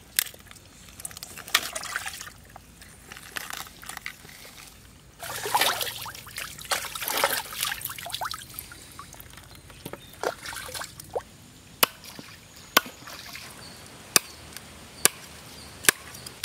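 Water splashing and trickling as a plucked duck carcass is washed by hand on a steel plate. In the second half a large knife chops duck meat on a wooden log block, with about six sharp strokes roughly a second apart.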